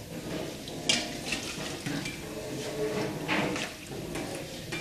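Clinking and clattering of dishes and cutlery being handled, a few sharp strikes with the loudest about a second in.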